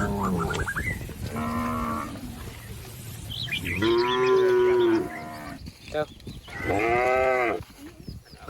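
Cattle mooing: three long moos of about a second each, at differing pitches, with the end of another at the start. Faint bird chirps sound in between.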